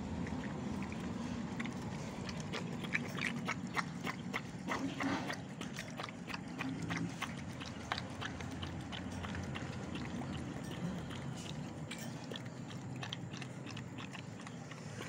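Dog eating noodle soup from a plastic bowl: irregular wet lapping and smacking clicks from its tongue and jaws, busiest in the first half.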